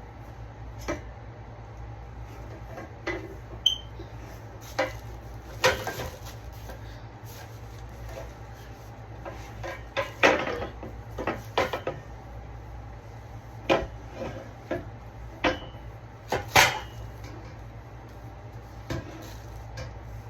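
Irregular knocks, taps and clinks of hard furniture parts and hardware being handled, a few with a brief metallic ring, over a steady low hum.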